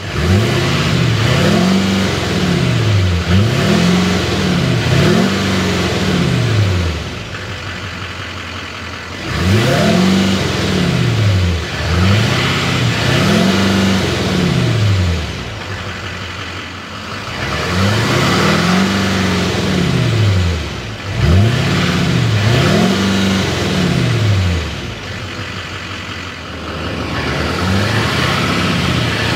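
2015 Chevrolet Silverado 2500HD's 6.6-litre Duramax V8 turbodiesel heard at the exhaust tip, revved in quick blips two or three at a time, each rising and falling back, with the engine dropping to idle between the clusters.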